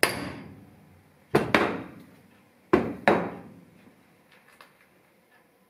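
Hide mallet striking a drill chuck five times, singly and then in two quick pairs, to drive its Morse taper shank up into the drill press spindle; each blow is followed by a short metallic ring.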